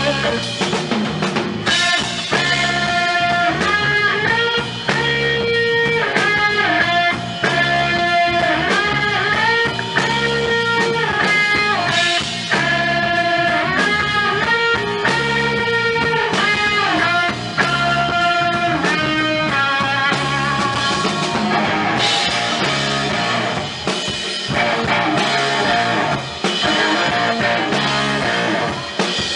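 Live rock band playing loud: an electric guitar carries a lead line of long, held, bending notes over a drum kit. About two-thirds of the way through, the held notes give way to denser playing.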